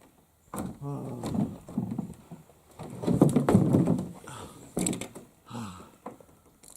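A man groaning and breathing hard, out of breath from the exertion of a long portage, with a sharp knock about two-thirds of the way through.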